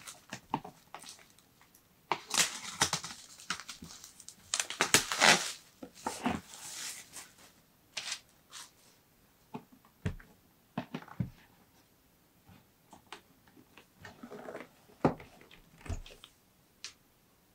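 Clear plastic wrap being peeled off a cardboard box and crumpled, in loud crinkling, tearing bursts over the first six or so seconds. After that come scattered light knocks and taps of the box being handled and set down.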